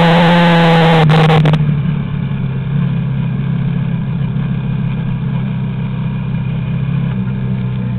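Yamaha Raptor quad bike engine running under throttle, then easing off about a second and a half in to a lower, steady run while riding along. It picks up slightly near the end.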